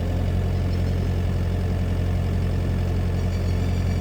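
Excavator's diesel engine running steadily with a deep, even hum.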